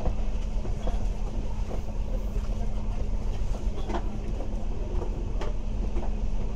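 Inside a moving bus: a steady low engine and road rumble with a constant hum, and scattered clicks and knocks of rattling interior fittings, one sharper about four seconds in.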